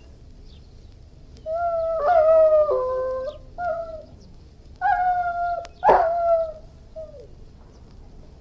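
Irish Wolfhound howling in a run of drawn-out calls, starting about a second and a half in, several ending with a drop in pitch. One call about six seconds in starts sharper and louder than the rest.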